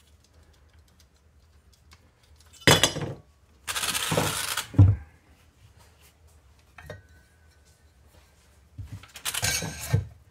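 Hard metal tools and small parts clattering and rattling on a workbench, in three bursts: about three seconds in, from about four to five seconds, and about nine seconds in.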